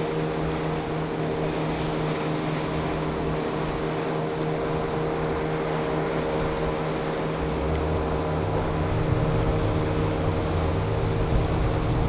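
A steady, distant engine drone holding one even pitch, over a background hiss; a low rumble swells from about eight seconds in.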